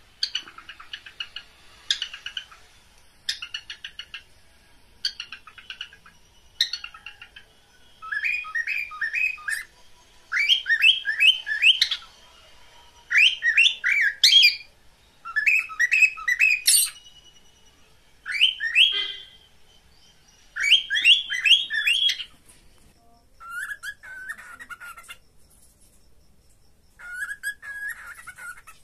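Pet cockatiels chirping in repeated bouts: short fast chattering bursts at first, then runs of three or four quick rising chirps every couple of seconds, with a lower whistled phrase twice near the end. Billed as a mating call.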